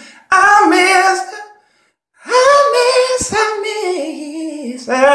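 A man singing a cappella in a high voice: two drawn-out sung phrases with a brief silence between them.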